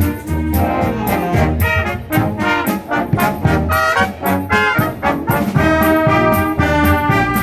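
Concert band playing: brass chords carried by trumpets and trombones over a steady beat of percussion strokes.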